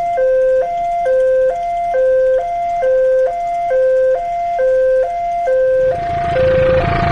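Railway level-crossing warning alarm sounding its two-tone signal, a higher and a lower tone alternating evenly, each about half a second long. About six seconds in, the rumble of an approaching train swells up beneath it.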